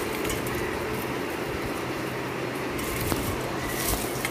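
Steady background hum and hiss, with light crackles and rustles as crisp fried anchovies are handled and moved from a steel bowl onto a plate. The crackles cluster about three to four seconds in.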